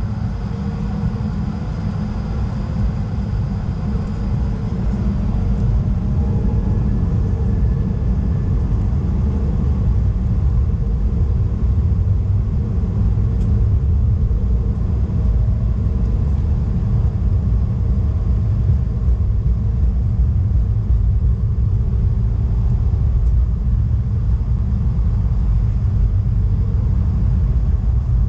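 Airbus A220-300 airliner's Pratt & Whitney PW1500G geared turbofan engines at takeoff power, heard from inside the cabin during the takeoff roll: a loud, deep rumble that builds over the first few seconds, then holds steady as the aircraft accelerates down the runway.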